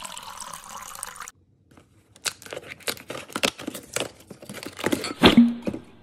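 Red wine pouring into a glass for about the first second, cut off abruptly. Then cardboard crackling and tearing in quick irregular snaps as a door of a cardboard advent calendar box is ripped open, with the loudest knock about five seconds in.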